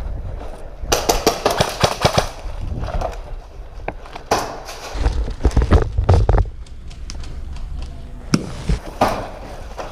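Airsoft guns firing: a quick run of sharp shots about a second in, then more scattered shots and short bursts through the rest.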